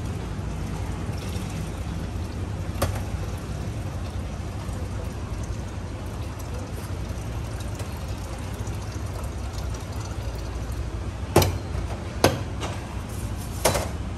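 Coffee being poured through a cloth coffee sock into metal mugs, over a steady low background hum. A single clink about three seconds in, and several sharp clinks of metal cups and pots near the end.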